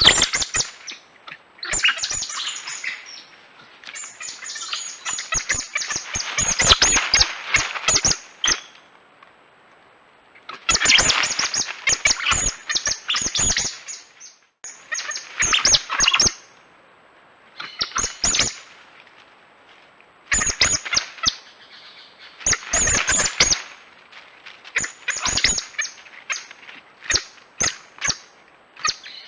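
Coati chirping: bouts of rapid, high chirps and clicks, each lasting one to four seconds, with short pauses between.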